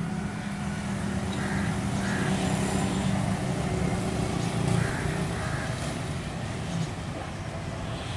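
Diesel locomotive engine hauling a short freight train: a steady low drone that grows louder toward the middle and eases off again after about five seconds.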